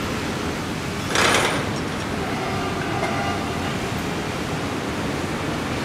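Steady running noise of a PNR passenger train moving away along the track, blended with street traffic. A short loud burst of hiss comes about a second in.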